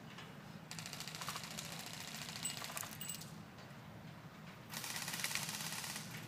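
Two bursts of full-auto airsoft gun fire, a fast rattle of shots, fairly faint. The first lasts about two and a half seconds starting under a second in; the second, about a second long, comes near the end.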